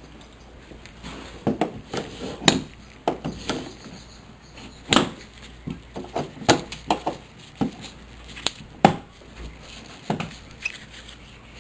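Irregular sharp clicks and knocks of hand tools and metal hardware being handled, the loudest about two and a half, five and nine seconds in.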